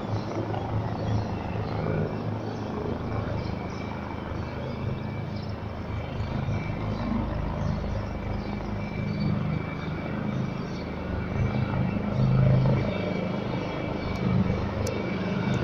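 Three military helicopters flying over in formation: a steady deep rotor-and-engine drone with a thin, steady high whine, getting louder in the second half.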